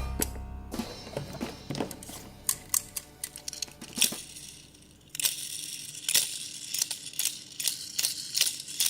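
Background music fading out over the first few seconds. Then crinkling and rustling with many sharp clicks, as toy packaging and small die-cast toy cars are handled.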